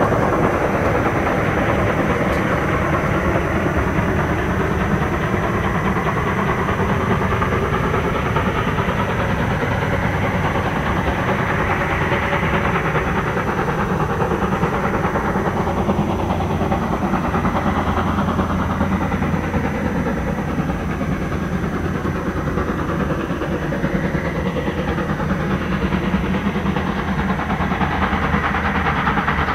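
DR class 52.80 steam locomotive with a freight train, running steadily: a continuous wash of steam and rail noise with no break.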